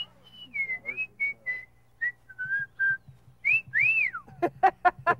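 Emus giving high whistling calls: a run of short whistled notes stepping down in pitch, then a longer whistle that rises and falls. Near the end comes a rapid series of short, harsh pulsed calls.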